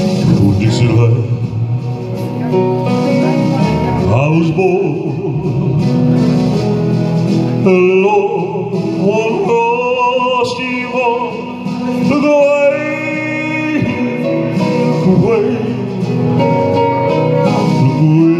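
Man singing into a handheld microphone over instrumental backing music, holding long notes with a wavering vibrato about ten seconds in.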